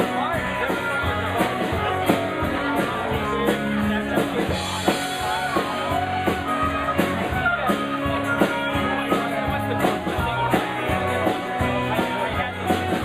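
Live band playing an instrumental break of a country-rock song: a guitar lead with bending notes over a steady drum-kit beat and bass.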